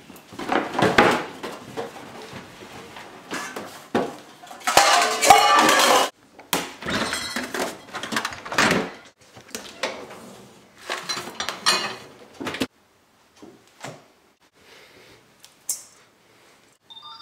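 Kitchen handling noise: cupboard and refrigerator doors, containers and a stainless steel mixing bowl knocking and clattering in irregular bursts. The loudest is a dense stretch of about a second, roughly five seconds in. It is sparser and quieter in the last few seconds.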